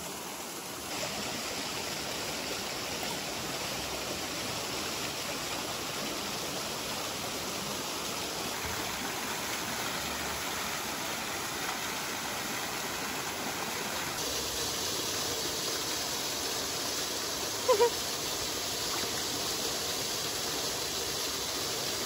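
Small waterfall splashing onto rocks into a shallow stream pool: a steady rush of falling water. About three quarters of the way through, a short high-pitched vocal sound breaks in briefly.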